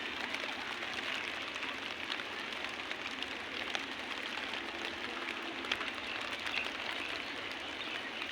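Light drizzle falling: a steady hiss of rain with many small drop ticks.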